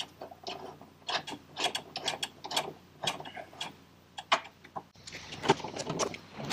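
Hand ratchet wrench clicking in short, irregular runs as bolts are run in, with small knocks of tools and metal parts; the clicking gets busier about five seconds in.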